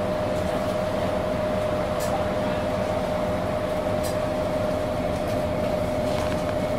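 Interior of a Mercedes-Benz O530G Citaro articulated bus under way: a steady engine and road rumble with a constant mid-pitched whine, and a couple of faint clicks about two and four seconds in.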